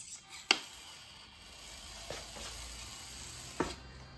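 Mini RC crawler driving over a wooden board and stones, with one sharp knock about half a second in and two softer clicks later.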